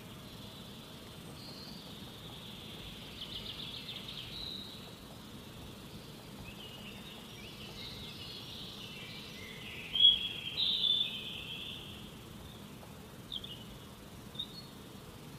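Forest ambience: birds chirping and trilling over a steady background of insects, with a louder run of bird calls about ten seconds in and a couple of short chirps near the end.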